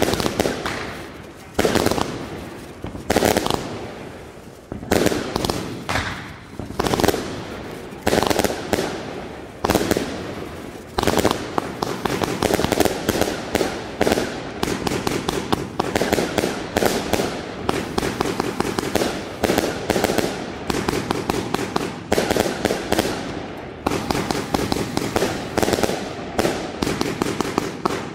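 Vuurwerkmania Tournament Box fireworks cake firing. For the first ten seconds its shots launch and burst separately, about one a second; from about eleven seconds in it turns into a dense, rapid run of shots and crackling.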